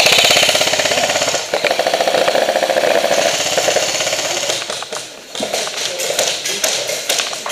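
Airsoft guns firing in rapid strings of shots, a fast even rattle that breaks off briefly about a second and a half in and trails off after about four and a half seconds.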